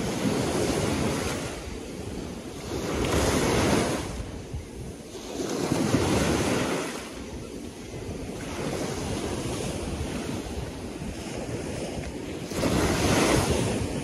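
Small waves breaking and washing against a concrete sea wall, rising and falling in surges every few seconds, with wind buffeting the microphone.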